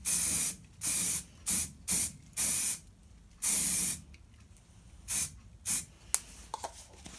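Aerosol can of weld-through primer spraying onto bare steel in about eight separate bursts of hiss, the last two short, followed by a few faint ticks.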